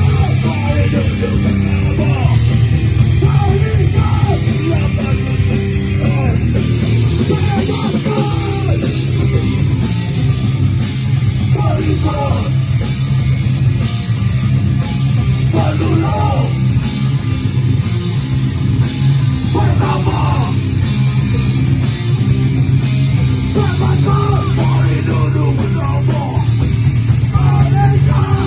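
Live heavy metal/hardcore band playing: distorted guitars, bass and drum kit, with shouted vocals coming and going.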